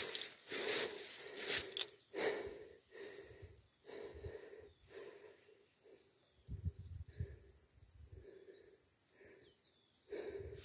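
Hunting dogs barking in the distance, short barks repeated about once or twice a second, with grass rustling close by in the first couple of seconds.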